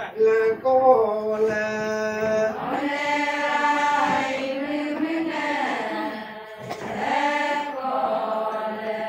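A group of women chanting a Ponung song together, the traditional Adi dance song, in long held notes, with a short break between phrases a little past the middle.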